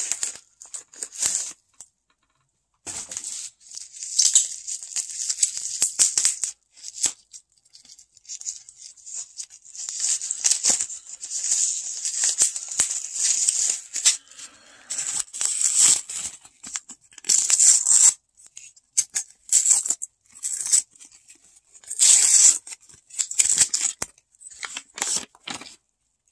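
Padded bubble mailer being torn open and unpacked: irregular bursts of tearing and crinkling paper and plastic, stopping and starting with short pauses.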